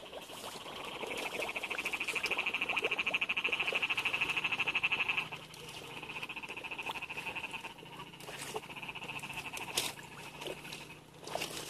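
Field frog calling after rain: a loud, rapid pulsing trill that cuts off abruptly about five seconds in, followed by weaker pulsing calls. A low steady hum comes in about four seconds in, and there are a couple of sharp clicks near the end.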